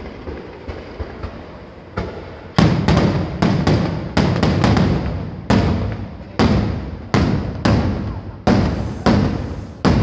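Aerial firework shells bursting overhead: a few light cracks, then from about two seconds in a rapid series of loud bangs, roughly two a second, each echoing between the buildings.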